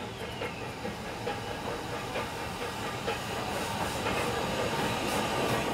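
Ffestiniog Double Fairlie steam locomotive moving slowly: steady steam hiss with an occasional light click, getting gradually louder as it comes nearer.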